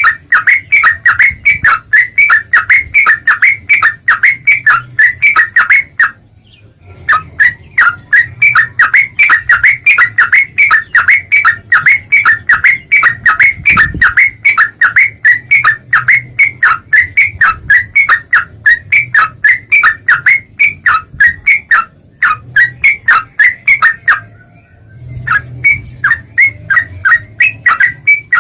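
Yellow-vented bulbul (trucuk) calling in a fast, unbroken run of short sharp notes, about four a second, pausing twice for about a second.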